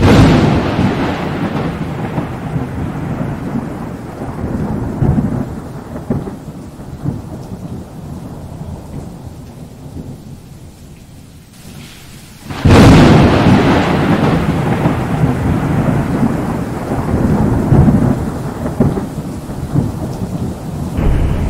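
Thunder: two claps, one right at the start and one about halfway through. Each is a sudden crack that rolls into a long rumble, fading over about ten seconds.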